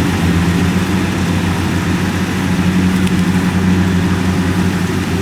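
Kubota DC70 combine harvester's diesel engine running at a steady, even drone.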